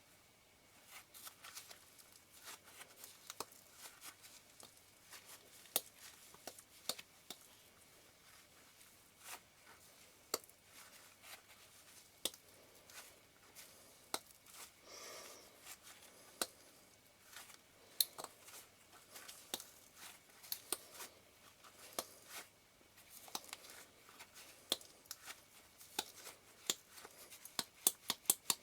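Small, sharp clicks and taps of metal lens parts and tools being handled on a workbench during lens disassembly, with a brief scrape about halfway through. The clicks come thicker and quicker near the end.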